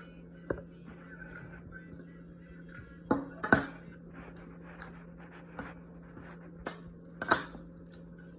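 A handful of sharp clicks and knocks over a steady low hum, the loudest in a cluster about three seconds in and again near the end.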